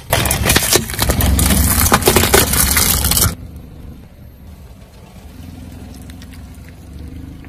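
A car tyre rolling over and crushing brittle, crunchy objects: a loud dense crackling and snapping for about three seconds. It then drops to a quieter low rumble from the car.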